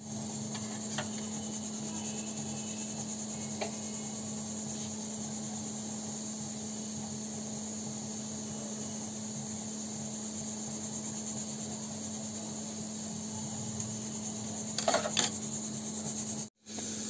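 Steady background hum and hiss, with a few faint snips of kitchen scissors cutting green chillies, a small cluster of them near the end.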